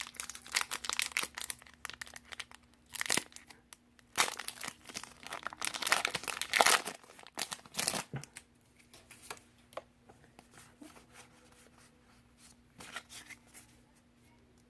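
Pokémon booster pack's foil wrapper being torn open and crinkled, in repeated bursts over the first eight seconds, loudest near the middle. After that only quieter light rustles and ticks as the cards are handled.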